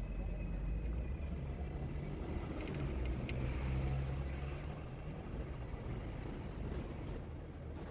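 Hong Kong double-decker tram running along its street tracks: a steady low rumble heard from the upper deck. It swells a little about halfway through as a double-decker bus passes close alongside.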